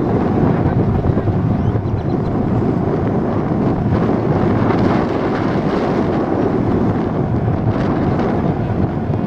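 Wind buffeting the camera's microphone: loud, steady noise, heaviest in the low end.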